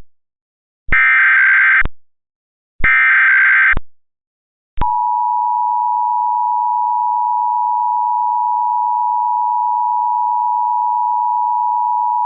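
Emergency Alert System SAME header being sent: two buzzy digital data bursts, about a second each and a second apart. From about five seconds in comes the EAS attention signal, a steady two-tone alert tone of 853 and 960 Hz sounding together.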